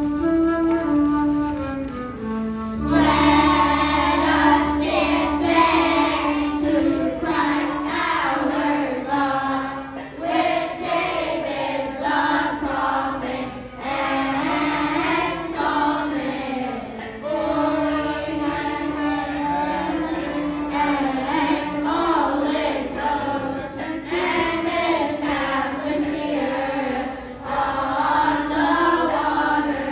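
Children's choir singing with instrumental accompaniment. The accompaniment's melody plays alone for about the first three seconds before the voices come in.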